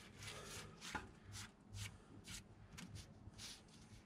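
Faint, irregular light taps and scraping, about two a second, from hands handling car parts during wheel and brake work, over a low steady hum.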